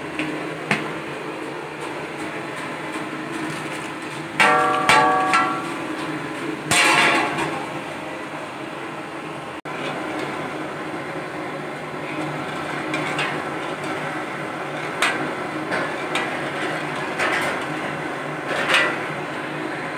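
Milk boiling in a metal pan under a steady hiss and hum, with a metal ladle knocking and scraping against the pan several times. A short ringing metallic tone sounds about four seconds in.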